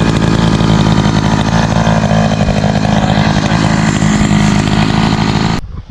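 Echo CS-590 Timberwolf two-stroke chainsaw running steadily at high speed, ripping a black ash log lengthwise on a chainsaw mill. It cuts off suddenly near the end.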